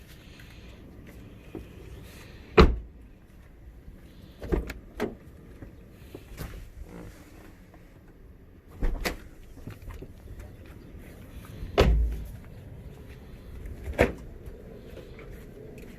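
A car's doors and interior fittings being handled: about six sharp clunks and thumps spread over several seconds, the loudest near the start and about twelve seconds in.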